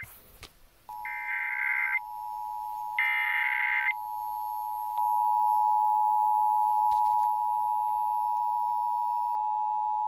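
Emergency Alert System test signal from small radio speakers. Two short, harsh digital data bursts of the SAME header come about one and three seconds in. Under them the steady two-tone EAS attention signal (853 and 960 Hz) starts about a second in and gets louder about halfway through.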